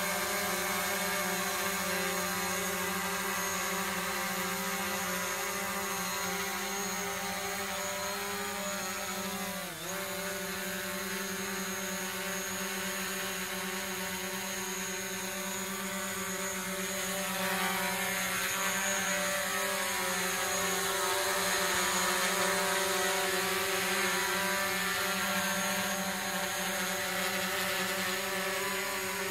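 Quadcopter drone propellers buzzing steadily in flight. The pitch dips briefly about ten seconds in, and the motor pitches shift up and down in the second half as the drone manoeuvres.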